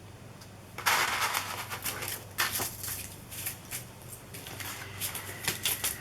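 Plastic stencil sheets being handled and shuffled, crackling and rustling with many small sharp clicks, starting about a second in.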